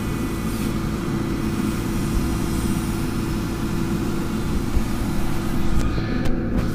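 Tata Hitachi hydraulic excavator's diesel engine running steadily as the boom and bucket dig soil, with a few short knocks in the second half.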